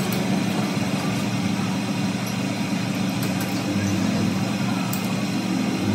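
Metal lathe's motor running with a steady low hum, starting up at the beginning.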